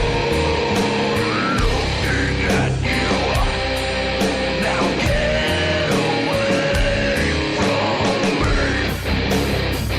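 Loud heavy metal song playing, with guitar over a steady drum beat and regular cymbal hits.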